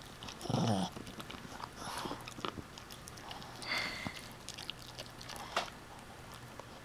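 Shih Tzu–pug mix puppy chewing and gnawing a chew toy: small wet clicks and a few snuffling sniffs, with one short low vocal sound about half a second in.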